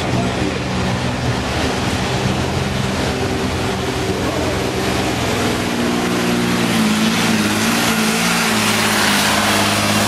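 Diesel engine of a supersport pulling truck running loud over a broad rushing noise. About six seconds in its pitch climbs and the level rises a little, then holds at the higher pitch.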